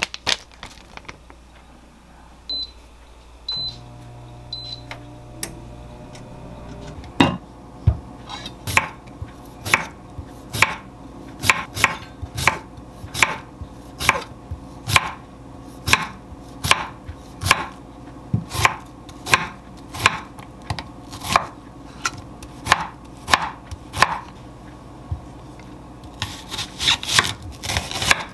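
Chef's knife slicing cucumber on a wooden cutting board, each cut a sharp knock on the board, about one and a half a second, quickening near the end as an onion is cut. Before the chopping starts, an appliance beeps three times and a low hum starts up.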